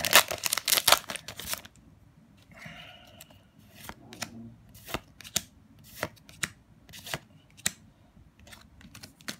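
Foil trading-card booster pack crinkling and tearing open for the first second or two, then cards slid one by one off the stack in the hand with short soft snaps, roughly one every half second to a second.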